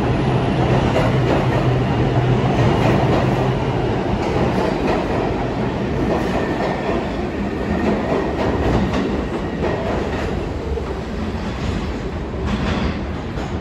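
New York City subway train running through the station, its wheels clacking over the rail joints. The noise eases off slowly as it goes.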